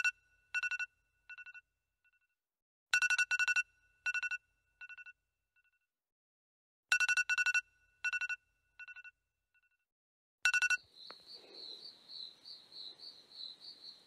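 Electronic phone ringtone, an alarm going off: a bright chime ringing about every four seconds, each ring trailing off in fading repeats. After the last ring, about ten and a half seconds in, a steady fast-pulsing insect trill like crickets starts at night.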